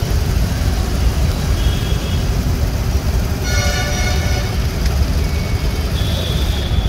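Road noise from riding a motorbike through city traffic: wind buffeting the microphone over the running engine, with a vehicle horn sounding once, for about a second, roughly three and a half seconds in.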